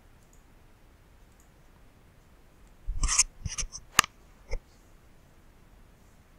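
Computer mouse clicking over faint room tone: a short cluster of scuffing clicks about three seconds in, a sharp click about a second later, and one more shortly after.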